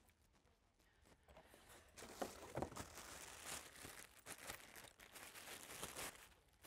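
Crinkly plastic packaging around a stroller rain cover rustling and crackling as it is handled and unwrapped, starting about two seconds in and stopping shortly before the end.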